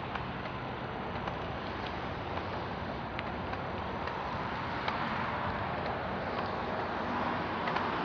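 Steady rolling noise of a bicycle ride: tyres on a paved path, with scattered light clicks and rattles from the bike. The noise grows a little louder about halfway through.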